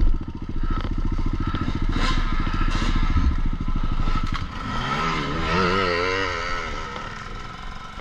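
Avantis 250 enduro motorcycle's single-cylinder engine idling with a fast, even firing beat. About five seconds in, a wavering sound rises and falls in pitch over it for a second or two.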